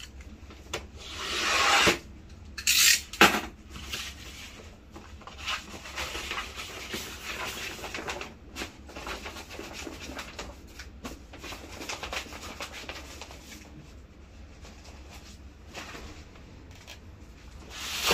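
A cutter knife drawn across a sheet of matte lamination film, a rising hiss about a second long, followed by sharp crackles and a long spell of rustling as the stiff plastic film is handled and rolled up.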